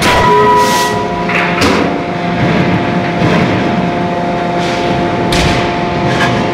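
A CNC hydraulic die-forging hammer strikes a red-hot connecting-rod blank in the die: a few heavy blows in the first two seconds, each leaving a metallic ring. A steady machine hum and lighter metal knocks follow.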